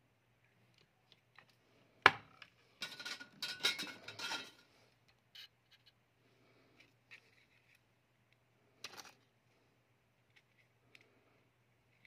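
Small hand tools and phone parts handled on a hard workbench: a sharp click about two seconds in, then a couple of seconds of metallic clattering and rattling, and another short rattle near nine seconds.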